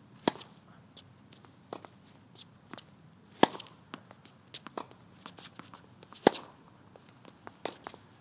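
Tennis rally: a tennis racket striking the ball with three sharp pops about three seconds apart, with softer ball bounces and more distant racket hits between them.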